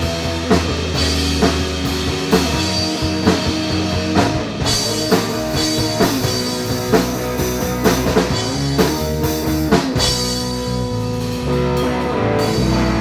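Rock band playing an instrumental passage without vocals: a drum kit beating steady time under guitar chords and bass.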